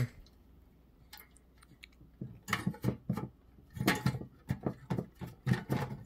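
Metal clicks and clatters from handling a steel hot-swap drive-bay cage: a couple of faint clicks, then, from about two seconds in, a run of irregular knocks and taps as the cage is moved.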